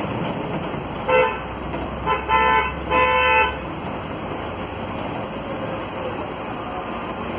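A vehicle horn honking four times: two short toots, then a half-second honk and a longer one. It sounds over the steady running noise of a Volvo B9SALF city bus heard from inside the cabin.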